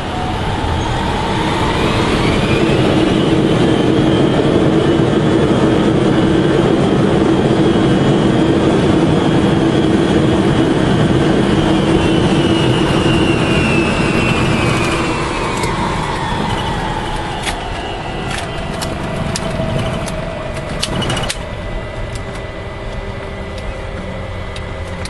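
Boeing 707 jet engines heard from inside the cockpit on the runway: their whine rises over the first few seconds as power comes up, holds steady, then falls away about halfway through as the engines spool down. A few sharp clicks come near the end.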